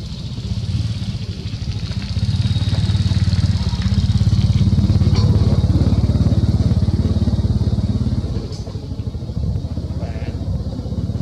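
An engine running, growing louder about two seconds in and easing off near eight seconds.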